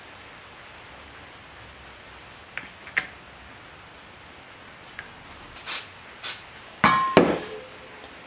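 Metal engine parts clinking as hands work the clutch assembly on a Honda Super Cub C90 engine's crankcase. There is a sharp metallic tap about three seconds in and two brief hissy scrapes, then the loudest sound near the end, a ringing metal clank.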